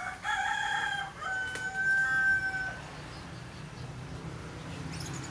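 A rooster crowing once, one long call lasting about two and a half seconds.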